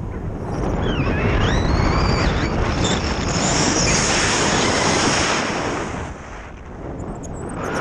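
Wind buffeting the microphone of a camera carried on a tandem paraglider flight: a loud, steady rush that swells about a second in and eases off near the end. A faint wavering high tone rises and falls briefly near the start.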